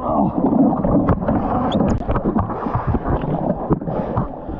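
Water sloshing and slapping against a kayak's hull, with wind buffeting the microphone and scattered knocks.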